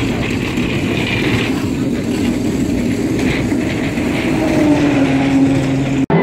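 Legends race car's engine running loudly and steadily at close range, a dense rapid firing. A steadier, higher note joins about four and a half seconds in, and the sound cuts off suddenly just before the end.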